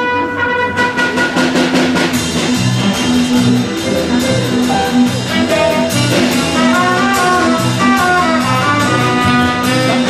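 Lively music with a steady drum beat and a repeating bass line; a melody line comes in a couple of seconds in.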